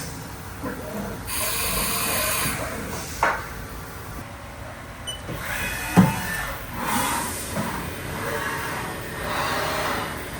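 Haas vertical machining center in operation: two short bursts of hissing air about five seconds apart, with sharp metallic clunks, the loudest about six seconds in, over a low running rumble.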